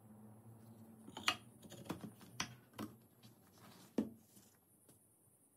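Light wooden knocks and clicks as a wooden magazine is handled and pushed into the magazine well of a wooden toy rifle: a handful of sharp taps, the sharpest about a second in and another about four seconds in, as it seats.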